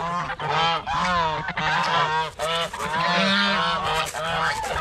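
A flock of domestic geese honking, with many calls overlapping one after another without a break.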